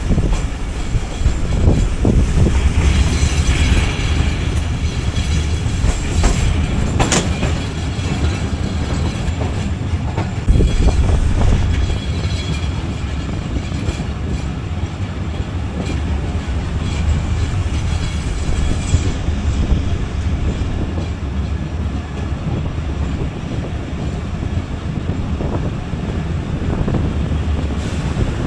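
Diesel-hauled passenger train running, heard from on board: a steady heavy rumble with the clickety-clack of wheels over the rails and a few sharp knocks.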